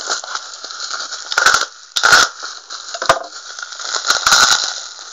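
Plastic bubble wrap being handled and crinkled by hand: a crackling rustle with four or five short, louder crackles.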